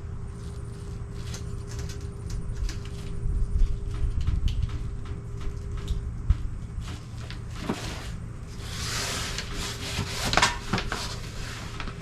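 Scattered clicks and knocks of lawnmower parts being handled during assembly. A louder rustling noise comes in from about eight and a half seconds.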